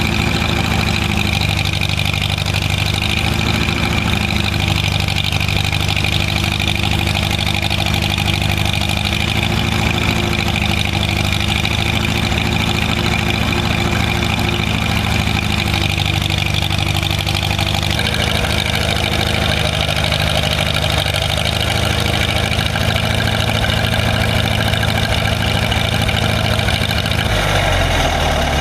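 An old vehicle's engine running steadily at low speed as it backs up onto a trailer under its own power; its note changes near the end.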